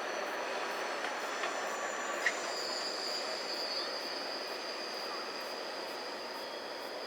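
Cars of a manifest freight train rolling past on the rails, with a sharp click a little past two seconds in and a steady high-pitched wheel squeal from about two and a half seconds in.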